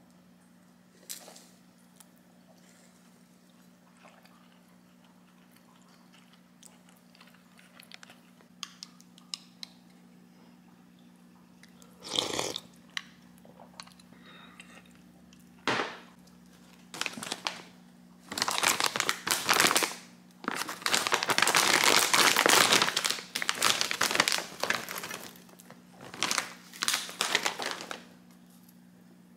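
Plastic snack bag crinkling and rustling in loud bursts as it is handled and takoyaki-ball puffs are shaken out onto a plate, after a few faint clicks earlier on. A low steady hum runs underneath.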